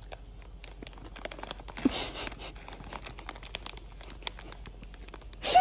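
Crinkling and rustling: a rapid run of small crackles, with a louder rustle about two seconds in and a sharper crackle just before the end.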